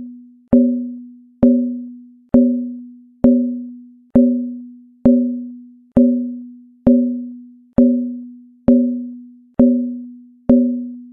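A low, hollow pitched knock struck over and over at a steady pace, a little under once a second. Each note dies away before the next, like a wood block or synthesized percussion sound effect.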